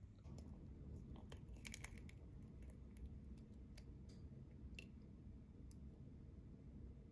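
Faint, scattered clicks and light crackles of broken eggshell halves knocking and scraping together as an egg is separated by hand over a glass bowl, over a low steady background hum.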